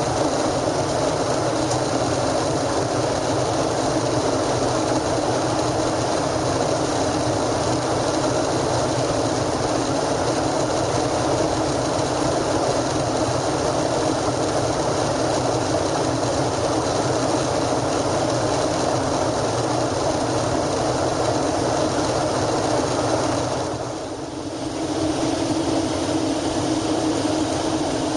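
Steady in-flight cabin noise of a Boeing 737-800: the even roar of its CFM56 turbofan engines and the rush of air along the fuselage. The level dips briefly a few seconds before the end and then comes back.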